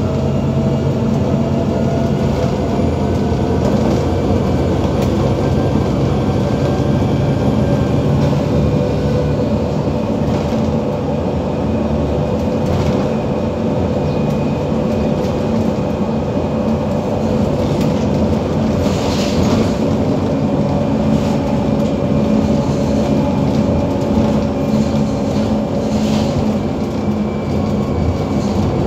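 Interior of an Iveco Urbanway 18 articulated natural-gas (CNG) bus on the move: steady engine hum and road noise, with a whining tone that slowly rises and falls in pitch as the bus speeds up and slows. A couple of brief rattles are heard in the second half.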